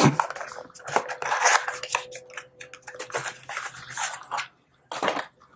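Paperboard perfume box handled and opened by hand: cardboard rubbing and scraping with many small clicks as the bottle is worked out of it, and a short sharper sound about five seconds in.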